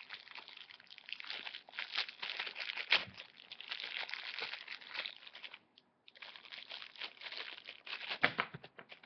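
Thin clear plastic bag crinkling and crackling as fingers work it open, with a short pause about six seconds in.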